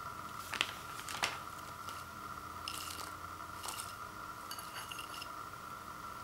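Light handling sounds from a bowl of popcorn and its snack bag: two sharp clicks about half a second and a second and a quarter in, then a few short crinkles and rustles. A faint steady high hum runs underneath.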